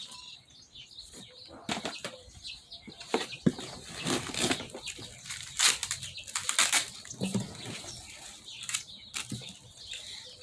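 Paper packaging and an instruction manual being handled and unpacked: irregular rustling and crinkling, with a few sharper crackles.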